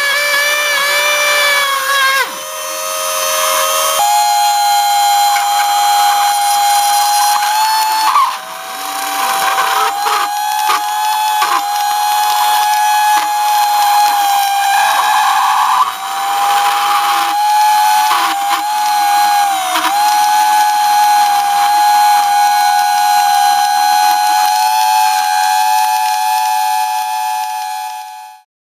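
An RC model Audi TT's motor and spinning wheels during a held-in-place burnout, giving a loud, steady high-pitched whine. The pitch jumps up about four seconds in, sags briefly a few times as the load changes, and cuts off abruptly near the end.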